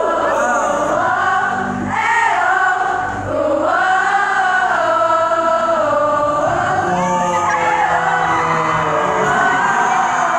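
Concert crowd singing a song together, many high voices in unison close by.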